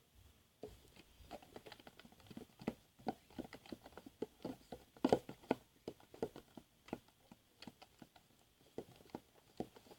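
Spoon stirring thick PVA glue in a plastic tub: a run of irregular small wet clicks and taps, several a second.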